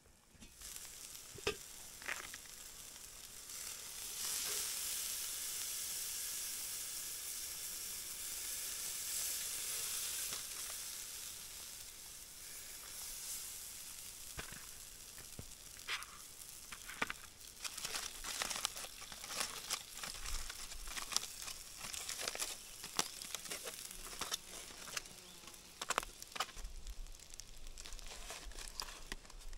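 Steak sizzling on the grate of a small charcoal kettle grill, a steady hiss that fades after about ten seconds. Then scattered sharp clicks and scrapes of a fork on the metal grate and crinkling of an aluminium foil packet.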